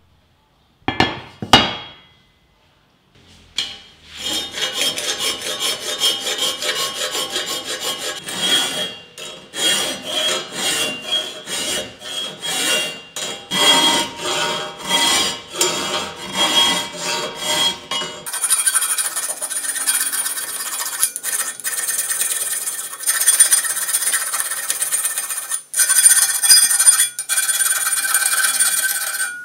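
Hand tool rubbing on a machine part in rhythmic strokes, about one and a half a second, after two short sharp knocks about a second in. Partway through the strokes give way abruptly to a steadier, faster rubbing.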